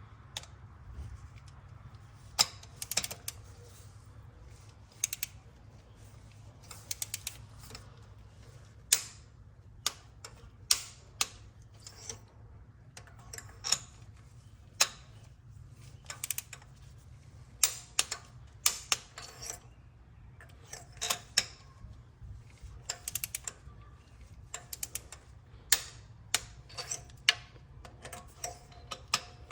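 Ratcheting torque wrench clicking in short runs with pauses as spark plugs are tightened to their torque spec.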